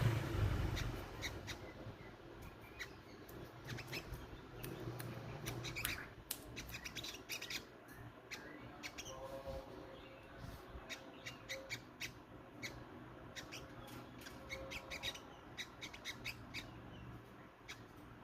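Sogok ontong (little spiderhunter) calling: an irregular string of short, sharp, high chips. This is a lure call, meant to draw the bird in.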